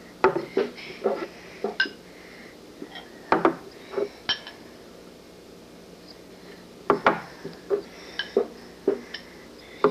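Glass and small cups clinking and knocking on a table as a glass of juice is poured out into four small cups, in several bunches of sharp clicks with quiet gaps between.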